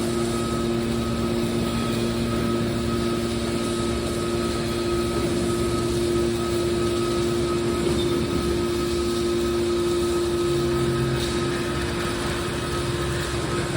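A hydraulic car baler's motor and pump running with a steady hum, holding a few constant tones without change.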